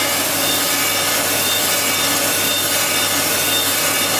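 AMC 1500H crankshaft grinder's abrasive wheel grinding a steel main journal of a Chevrolet 305 crankshaft, a steady, even grinding noise over a low machine hum. It is the roughing pass, with the wheel slowly traversing to clean up the journal's radiuses and walls before the final size.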